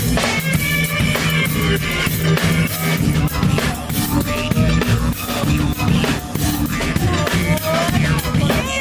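A band playing instrumental music, a drum kit keeping a steady beat under a sustained low bass part and melodic lines above.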